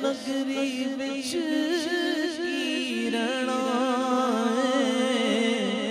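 Unaccompanied naat singing: a male voice draws out long, wavering melismatic notes without words, over a steady hummed drone.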